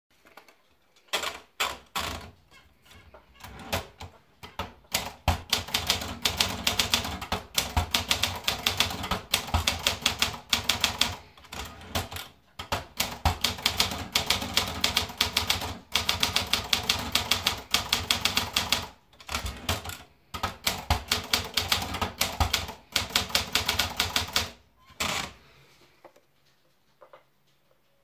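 Olympia Traveller portable manual typewriter being typed on: a few scattered clacks at first, then fast runs of typebar strikes with short pauses between them. The typing stops about three seconds before the end.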